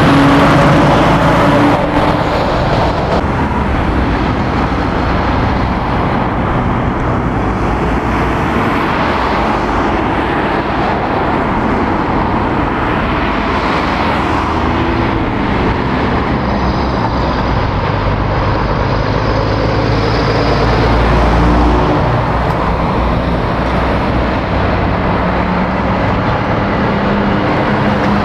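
Road traffic at a roundabout: an articulated lorry passes close, loudest in the first couple of seconds, then cars and lorries go by steadily. Near the end the diesel engine of another lorry, a Volvo FH tractor unit, comes up close.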